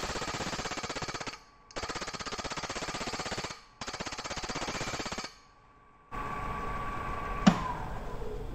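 A cutting tool trimming a spinning aluminum bowl on a wood lathe makes a rapid clattering chatter in three passes of about a second and a half each, then stops. The lathe then runs more quietly, with a single sharp clink about seven and a half seconds in.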